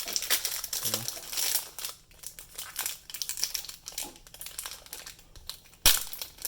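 A foil Yu-Gi-Oh! booster pack wrapper crinkling as it is handled and opened, with bursts of dense crackling in the first two seconds and again around three seconds in. A single sharp snap near the end is the loudest sound.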